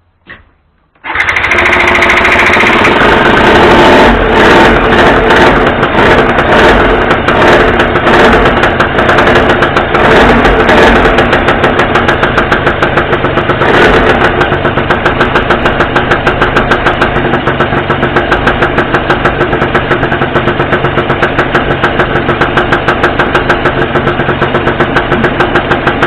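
Yamaha Grand Axis 100 scooter's two-stroke single-cylinder engine catching about a second in on its first start after the carburettor was taken apart and cleaned. It runs unevenly with some revving at first, then settles into a steady, rapidly pulsing idle.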